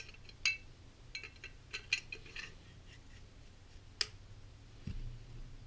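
Metal 1911 pistol slide being slid onto the frame rails by hand: a string of light metal clicks and scrapes, one sharper click about four seconds in, and a dull low thump near the end.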